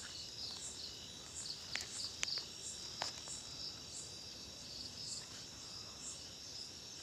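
A chorus of crickets and other insects: a steady high trill with chirps repeating about one and a half times a second. A few faint sharp clicks come about two to three seconds in.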